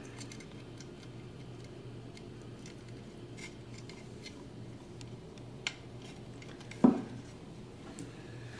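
Scattered small clicks and taps of a woofer and its mounting hardware being handled as it is fitted back into the speaker cabinet, with one louder knock about seven seconds in. A steady low hum runs underneath.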